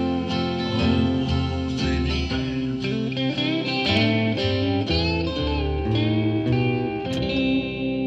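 Instrumental passage of a song: acoustic guitar picked over a backing track of electric guitar and bass, with lead notes bending in pitch in the middle and a chord struck near the end.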